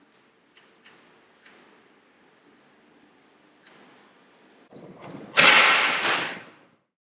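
A Japanese yumi bow is loosed in kyudo: a sudden loud burst as the string is released and the arrow flies off. A second loud burst follows about half a second later, and the sound dies away within about a second and a half.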